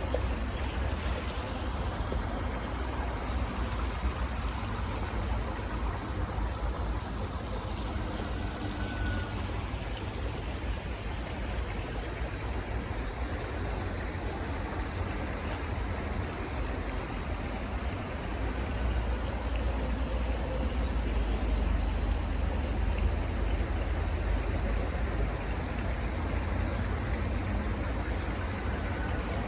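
Steady outdoor ambient noise with a deep rumble, like wind or distant water. Over it runs a continuous thin high tone, with faint short high ticks about every two seconds.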